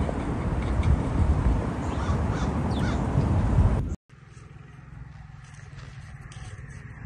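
Wind buffeting the microphone with a few bird calls over it. About four seconds in it cuts off suddenly to a much quieter, steady low hum.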